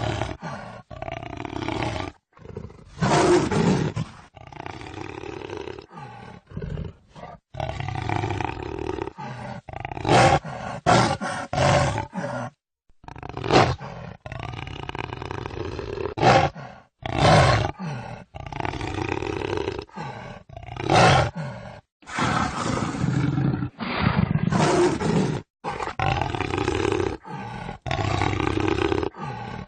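Jaguar roaring and growling: a string of separate deep calls, each lasting from under a second to a few seconds, with abrupt cuts between them and a few short, louder roars.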